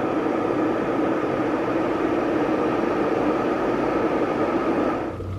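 Glass electric kettle heating a full 1.7 litres of water partway to the boil, giving a steady rushing hiss. The sound cuts off suddenly near the end.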